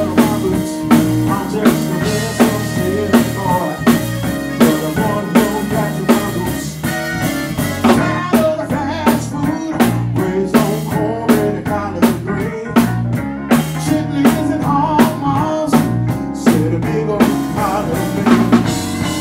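A live band plays an instrumental groove: a drum kit keeps a steady beat with cymbals under electric guitar. About halfway through, the cymbal wash drops out, leaving sharper, separate drum hits.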